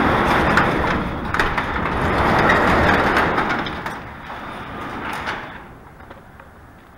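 Roll-up shop door being raised: a continuous noise with small knocks in it that fades after about four seconds and stops about five and a half seconds in.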